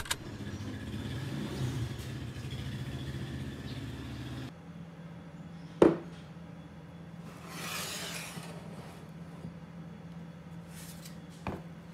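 Steady low rumbling background of a busy eatery, which cuts off after about four seconds. It gives way to a quiet room where a glass is set down with a sharp clink, followed by a short soft hiss and a faint tap near the end.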